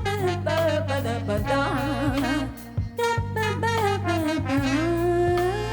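Band music: a melodic lead line with vibrato and sliding notes played over a steady bass and drums.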